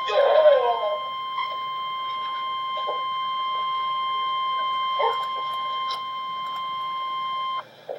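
Emergency Alert System attention tone: a single steady, high electronic tone that cuts off suddenly about a second before the end. A short jumbled burst is heard near the start.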